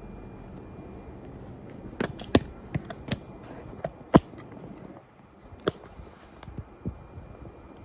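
A ceiling fan, a 1981 Casablanca Victorian, running steadily on high speed. About two seconds in, a string of sharp clicks and knocks begins and lasts some five seconds; the two loudest come about two and four seconds in.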